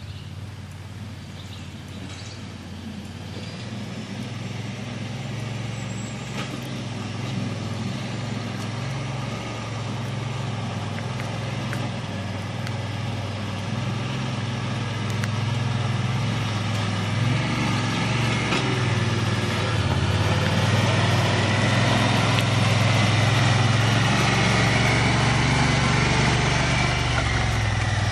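Honda Pioneer 1000 side-by-side utility vehicle's engine running steadily while pulling a log on a logging arch, growing steadily louder as it approaches.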